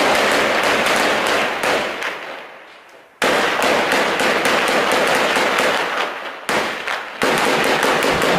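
Long bursts of rapid automatic gunfire, each trailing off into echo; a fresh burst starts suddenly about three seconds in, and two shorter ones follow near the end.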